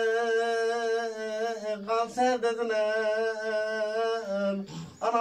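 A man singing an uzun hava, a free-rhythm Turkish folk song, unaccompanied: long held notes with small ornamental turns in pitch, a brief break for breath about four and a half seconds in, then the next phrase begins.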